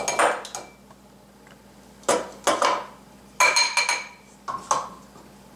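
The plastic bowl and blade of a small food chopper knock and tap against a glass mixing bowl while minced garlic is emptied out, in several short bursts of clinks and clatter.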